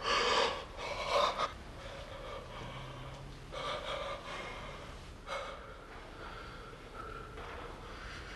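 A man gasping sharply twice as he jolts up in bed, then breathing heavily in a few quieter, ragged breaths.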